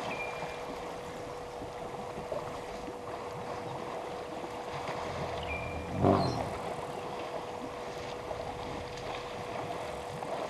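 Elephants wading and splashing in a waterhole, with water sloshing steadily and a louder burst of splashing about six seconds in. A bird whistles briefly twice, over a faint steady hum.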